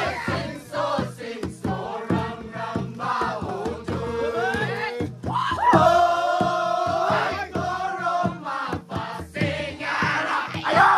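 Group of Naga men in traditional dress chanting and singing together, broken several times by loud whooping cries that rise in pitch.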